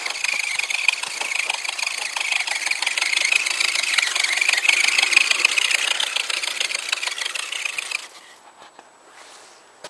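Radio-controlled scale truck's motor and gear drivetrain whirring as it crawls through snow, then cutting off suddenly about eight seconds in as the truck stops.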